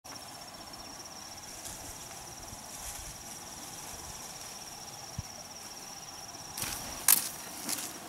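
An insect trilling steadily on one high, rapidly pulsing note over a fainter hum of forest background. Near the end come a few sharp rustling crunches, the loudest about seven seconds in.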